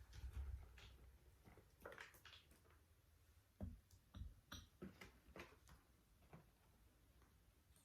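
Faint, irregular clicks and light knocks, like small objects being handled, over near silence.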